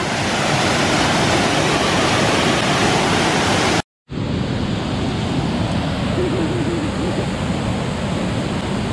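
Waterfall and river water rushing, a loud, steady, even roar. It cuts out completely for a moment about four seconds in, then carries on.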